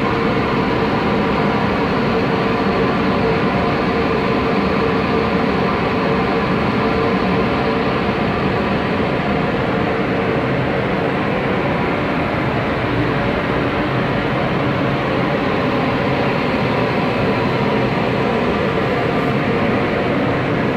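Taiwan Railways EMU500 electric multiple unit running past along the platform: a steady, loud train noise with several steady tones running through it.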